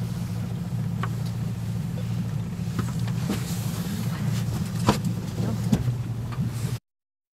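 Boat engine running with a steady low hum, with a few sharp clicks and knocks over it. The sound cuts off suddenly near the end.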